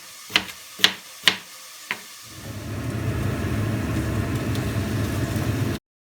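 A few sharp clicks, like utensils tapping on a pan or dish, then from about two seconds in a steady low whir of a small motor, most likely a kitchen appliance, which cuts off suddenly near the end.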